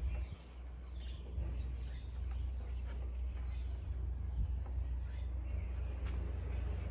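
Birds chirping now and then over a steady low rumble, with a few light clicks.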